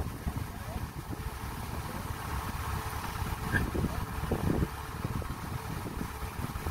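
Kubota DC-70 rice combine harvester running steadily, its diesel engine and threshing works giving a continuous low rumble.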